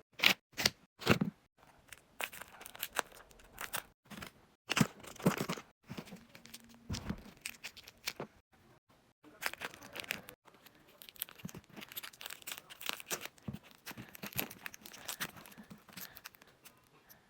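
Packaging being torn open and crinkled by hand: irregular bursts of tearing and crackling rustles with short pauses between them.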